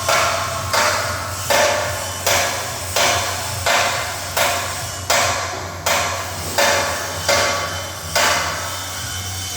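A hammer striking metal in a steady rhythm: about a dozen evenly spaced blows, a little more than one a second, each ringing briefly, over a steady low hum.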